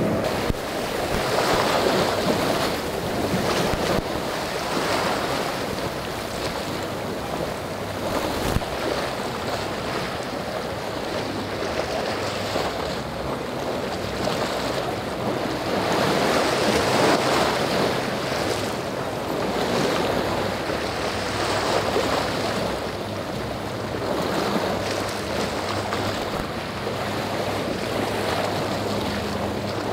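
Rough surf and churning water in an ocean inlet, with wind buffeting the microphone and the low hum of boat outboard engines underneath. The noise swells and eases, loudest a couple of seconds in and again around sixteen to eighteen seconds.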